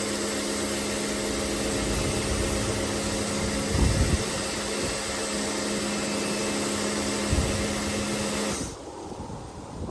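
Pressure washer running steadily, its motor humming under the hiss of the spray, with two low bumps; it cuts off suddenly near the end.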